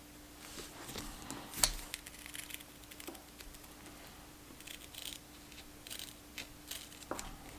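Scissors cutting a thin peel-and-stick faux-leather patch: irregular snips and rustles of the sheet, with a sharp click about one and a half seconds in.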